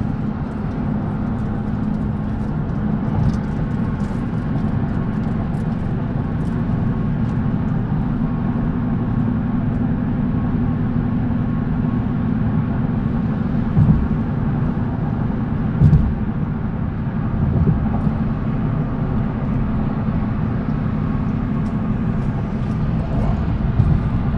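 Steady road and engine noise heard from inside a car's cabin at highway speed, with two brief thumps a little past halfway.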